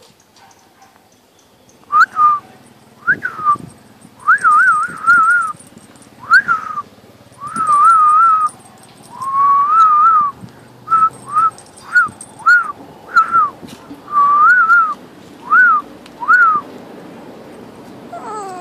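A person whistling close by: a string of short rising-and-falling notes and warbling phrases, about fifteen in all, with brief gaps between them.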